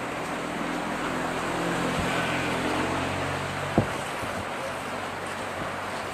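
Steady wind and road rush on the microphone of a moving vehicle, with a vehicle engine hum that swells and fades over a few seconds. A single sharp knock comes just before the four-second mark.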